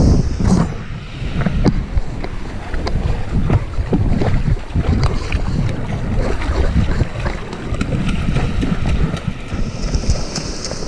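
Wind buffeting the microphone over waves washing up on a sandy shore, with scattered small knocks.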